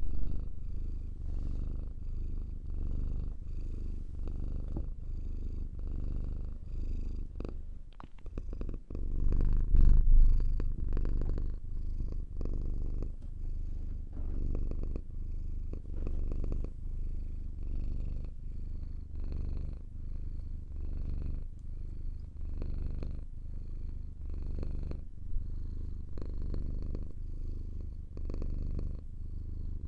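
Domestic cat purring close to the microphone: a steady low rumble pulsing with each breath in and out. About nine to ten seconds in, a brief louder disturbance breaks the rhythm before the purring settles again.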